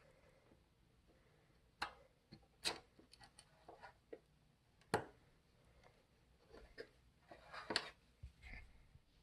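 Faint scattered clicks and brief rustling of hands handling an RC plane while fitting the battery and plugging in connectors. The sharpest click is about five seconds in, with a busier run of clicks near the end.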